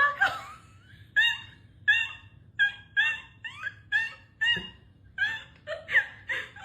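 A bird giving a rapid series of short, high, squawking calls, about a dozen of them at roughly half-second to one-second intervals.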